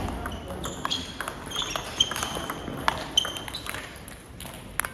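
Table tennis rally: the celluloid/plastic ball clicking sharply back and forth off paddles and table, a quick run of hits with short high ringing, tailing off after about three seconds.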